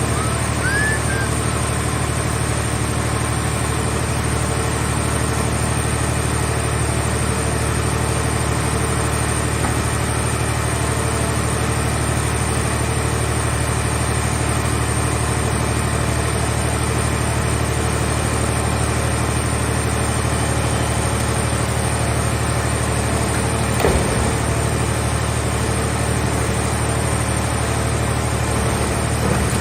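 Heavy machinery engine running steadily at a constant speed, with a single knock about 24 seconds in.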